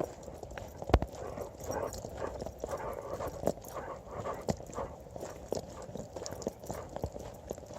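Footsteps of a person walking along a road, a steady step about once a second.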